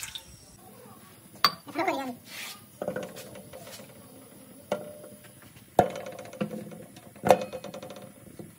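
Lumps of jaggery dropped one at a time into an aluminium pot. Each lands with a sharp knock that leaves the pot ringing, about five knocks in all, a second or so apart.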